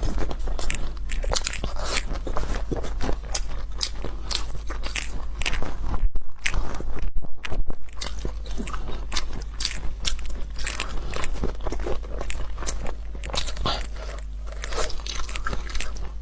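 Close-up crunching and chewing of crisp food: many quick, irregular crunches, easing off briefly about six seconds in, over a steady low hum.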